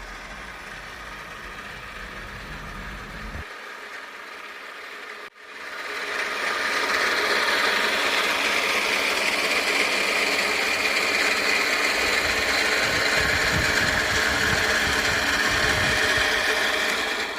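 A motor or engine running steadily. It is a quieter hum for the first few seconds, then after a break about five seconds in it comes back louder and stays steady.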